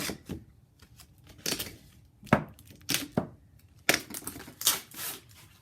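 Captains of Crush No. 3 steel hand gripper being handled and squeezed: a series of irregular sharp clicks and knocks.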